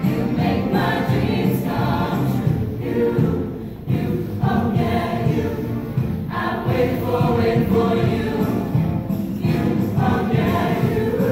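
A choir singing in phrases over instrumental accompaniment with a steady beat.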